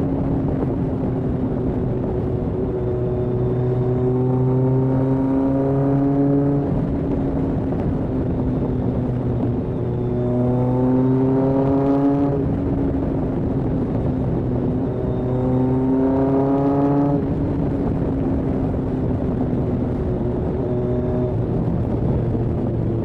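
Kawasaki ZRX1200R's inline-four engine on Yoshimura TMR-MJN carburettors, pulling under way: the engine note climbs in pitch and drops back about three times, over a steady low exhaust drone.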